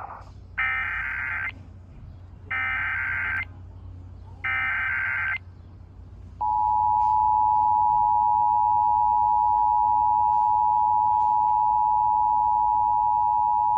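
Emergency Alert System header: three short bursts of screeching SAME digital data, about two seconds apart. From about six and a half seconds in comes the steady two-tone EAS attention signal of 853 and 960 Hz, held loud and unbroken.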